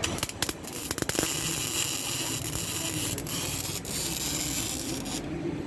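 Electric welder welding car chassis steel: a few short crackles, then about four seconds of steady crackling hiss from the arc, which stops abruptly near the end.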